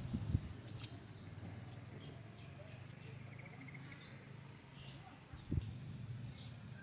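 Quiet outdoor ambience of scattered short, high chirps and a brief trill, over a steady low hum, with one soft thump about five and a half seconds in.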